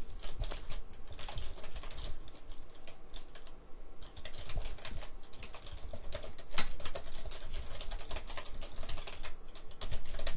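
Typing on a computer keyboard: a quick, uneven run of key clicks, with a short pause about four seconds in.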